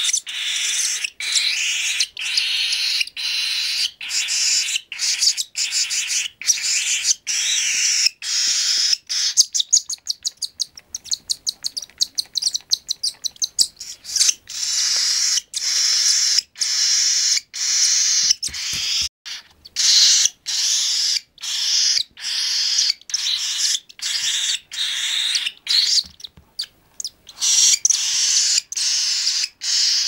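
Three-week-old cockatiel chicks food-begging while being hand-fed: repeated calls about two a second, speeding into a quick run of short calls for a few seconds about ten seconds in.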